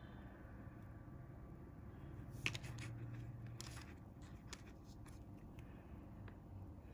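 Faint handling noises: a few small clicks and rustles as fingers pick up small steel fish hooks and fishing line from a tabletop, the loudest about two and a half seconds in. A low steady hum lies under them.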